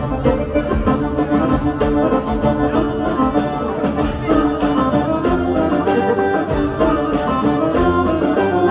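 Folk dance music led by an accordion, with held chords over a steady beat.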